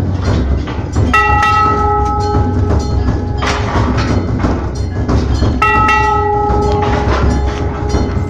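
Hanging metal temple bell, set going by monkeys, struck twice about four and a half seconds apart, each strike ringing with several clear tones that fade over a second or more. Short knocks and clatter fill the gaps, over a steady low rumble.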